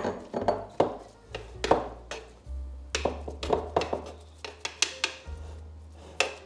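Metal fork and spoon clinking and scraping against a dark earthenware bowl as cooked collard greens are stirred and mixed, with many sharp, irregular clinks.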